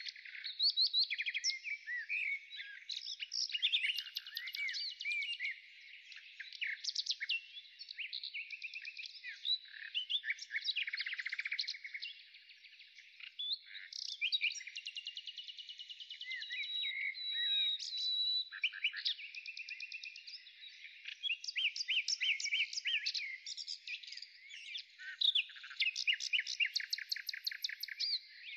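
Songbirds singing continuously: quick chirps, rapid trills and short whistles that rise and fall, overlapping one another.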